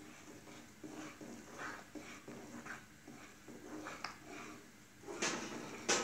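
A metal spoon stirring beaten egg into boiling soup in a metal pan: soft stirring strokes, about two to three a second, then two louder scrapes of the spoon against the pan near the end.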